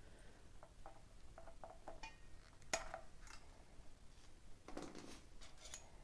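Wire cutters snipping off the excess tails of nylon zip ties: faint clicks and handling, with a sharp snip about three seconds in and a few softer clicks near the end.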